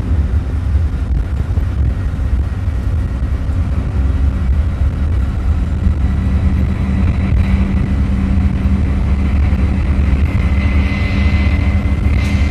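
Bus engine and road noise heard from inside the cab while cruising on the highway: a steady low rumble. A thin high whine joins it about halfway through and grows louder near the end.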